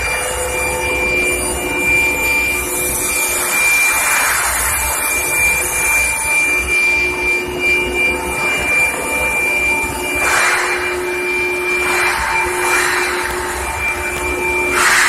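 Induction surface-hardening equipment for oil pipe running: a steady high-pitched whine over a constant hiss, with the hiss swelling louder about four seconds in, around ten to twelve seconds in, and again near the end.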